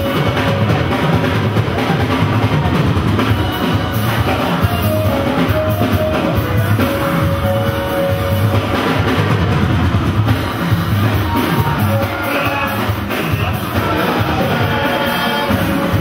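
Loud church music: a drum kit keeps a steady beat under voices singing.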